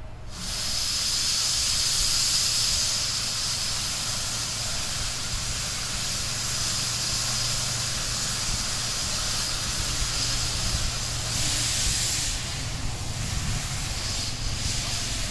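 Steam locomotive U 29.101 Krutwig venting steam low on its side: a loud, steady hiss that starts suddenly about half a second in and holds without a beat.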